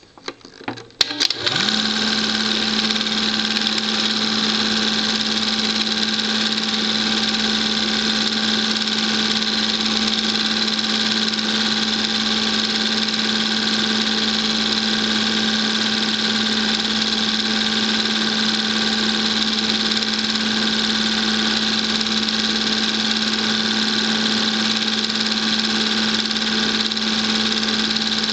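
Home-movie film projector starting up: a few clicks, then its motor spins up about a second and a half in and runs at a steady hum with a whirring rattle.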